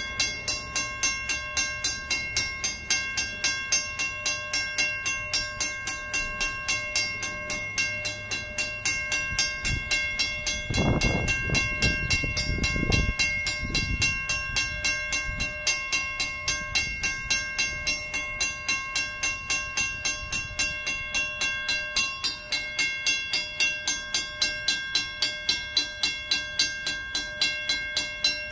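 WCH mechanical crossing bell on a railroad crossing signal ringing steadily, a little over two strikes a second, each strike leaving a lasting metallic ring. About eleven seconds in, a low rumble from the passing freight cars swells for a few seconds.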